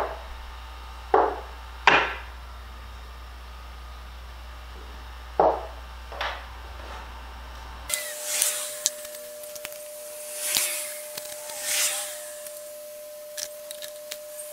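Wood knocking on wood: five sharp clunks spread over about six seconds. Then, after an abrupt change in the background noise, several soft scratchy rubbing strokes over wood, with a faint steady tone.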